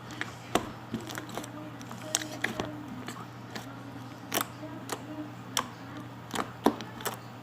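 Slime being squeezed and played with by hand, making irregular sharp clicks and pops, about a dozen scattered through, over a steady low hum.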